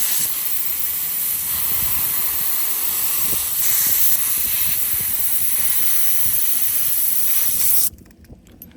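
Compressed air hissing from an air-compressor nozzle as it is blown through the small fuel passage of a Briggs & Stratton engine's clogged carburetor bolt to clear it. The loud, steady hiss swells briefly about halfway through and cuts off suddenly near the end.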